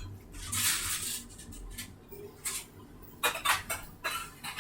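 Things being handled: a short rustle about a second in, then a scatter of light clicks and clinks, more of them in the second half.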